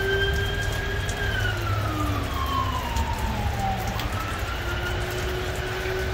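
Emergency vehicle siren wailing: its tone holds high, slides slowly down over a few seconds, then jumps back up about four seconds in. Steady low background noise runs underneath.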